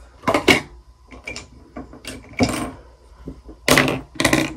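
Makeup items being handled on a desk: a scattered string of short clicks and knocks, the loudest near the end.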